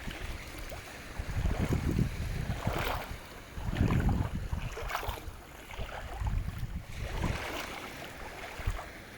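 Wind buffeting the microphone in uneven low gusts over shallow sea water. Short splashes come about every two seconds.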